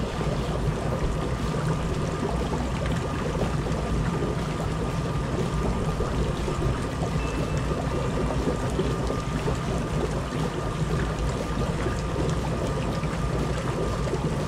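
Whirlpool bathtub with its jets running: water churning and bubbling over the steady hum of the pump motor.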